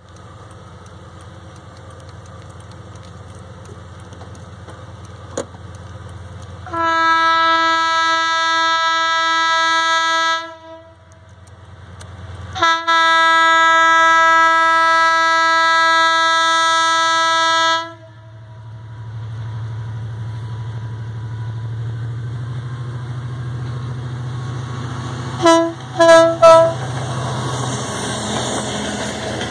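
GT22CW2 diesel-electric locomotive sounding its horn in two long blasts of about four and five seconds, then three short toots near the end, over the low rumble of its diesel engine. The rumble grows louder as the locomotive comes by, and its coaches rattle past at the end.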